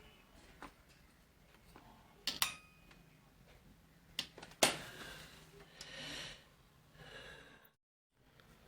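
Quiet bench handling during a charger repair: a few sharp clicks and clinks, one pair with a brief metallic ring, and soft rustling between them.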